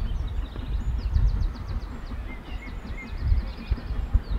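Songbirds singing in quick high trills, twice, over a low, uneven rumble.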